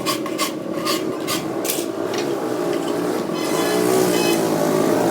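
A rasp or file worked back and forth across wood in quick, even strokes, about three a second, stopping about two seconds in. A louder pitched sound follows near the middle.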